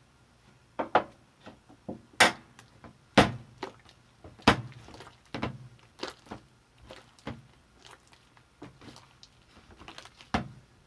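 Hard objects being knocked and set down while slime ingredients are handled: about a dozen irregular thunks and clicks, the loudest around two, three and four and a half seconds in.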